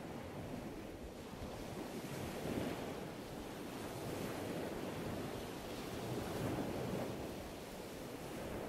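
Sea surf breaking on a reef and washing in, a steady rush of water that swells and eases as each wave breaks.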